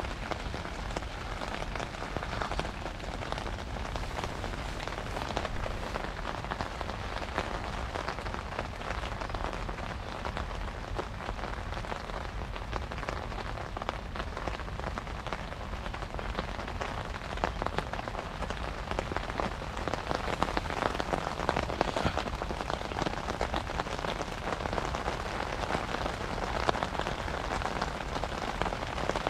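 Heavy rain falling on a fishing shelter's fabric canopy and on the lake around it, heard from under the shelter as a steady, dense patter of drops.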